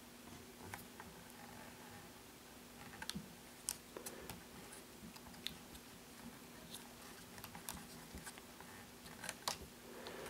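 Faint, scattered small clicks and taps of fingers handling and fitting the white plastic camera gimbal parts of a DJI Phantom 2 Vision drone, the sharpest a few seconds in and again near the end, over a faint steady hum.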